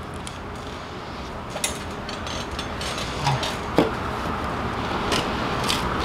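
Handling noise from a metal bee smoker being picked up and handled: a few scattered sharp clicks and knocks over a steady hiss that grows louder toward the end.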